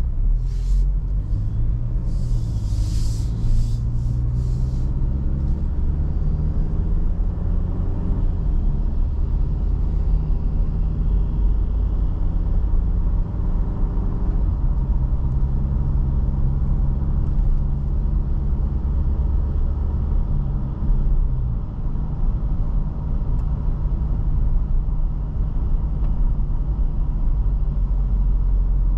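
Toyota Fortuner's 2.7-litre naturally aspirated four-cylinder petrol engine running on the move, with steady road rumble. The engine note climbs and drops back a few times as the six-speed automatic shifts. There is a brief burst of hiss and crackle in the first few seconds.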